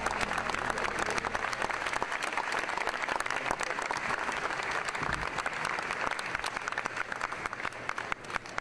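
Large crowd applauding, a dense, steady clatter of many hands clapping that thins slightly near the end.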